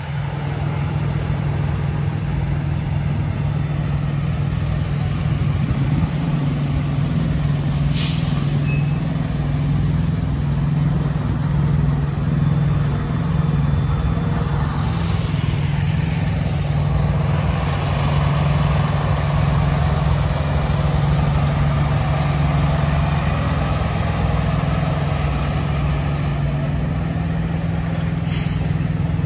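Semi-truck diesel engine running at a steady idle, with a brief air hiss from the brakes about eight seconds in and again near the end.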